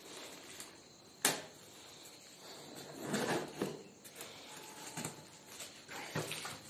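Handling of a large cardboard TV box: a sharp knock about a second in, then rustling, scraping and small knocks as it is gripped and tilted.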